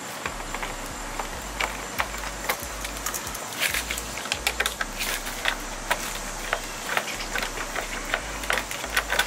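Socket ratchet clicking in short irregular runs, with small metallic clicks and rattles, as the bolts holding a fog light housing to a plastic bumper cover are backed out.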